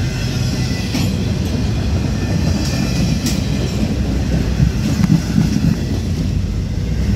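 Freight train of empty intermodal well cars rolling past close by: a steady low rumble of steel wheels on rail, with a few sharp clicks here and there.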